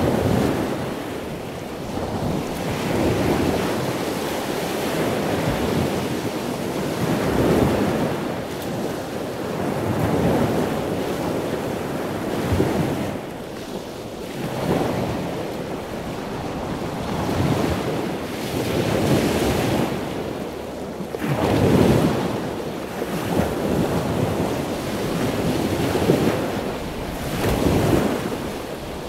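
Ocean surf: waves rolling in one after another, the noise swelling and falling every two to three seconds.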